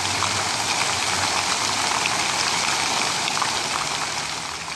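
Fountain jets splashing down into a pool: a steady rushing and pattering of falling water.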